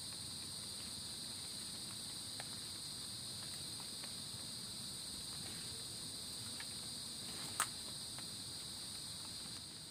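Steady chorus of field insects, two high even drones with no break, typical of crickets. Faint scattered clicks run through it, with one sharper, louder click about three-quarters of the way through.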